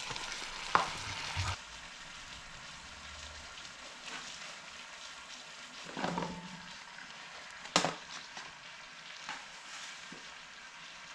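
Sliced onions, carrots and potatoes sizzling as they are tipped into a hot Dutch oven around a freshly seared chuck roast, with a few clinks and knocks, the sharpest about eight seconds in.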